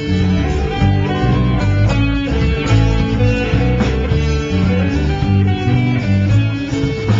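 Live band playing an instrumental passage: electric guitar over bass guitar and drums, loud and steady.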